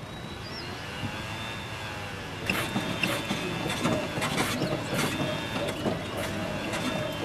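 Pogo stick bouncing on a concrete driveway: sharp impacts about twice a second, starting about two and a half seconds in, over a steady background hum.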